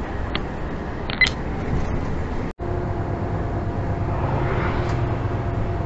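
Steady engine and road noise heard from inside a vehicle cab cruising at motorway speed, with a few short clicks about a second in. The sound cuts out completely for a moment about two and a half seconds in, where the recording jumps to another clip, then the same steady drone carries on.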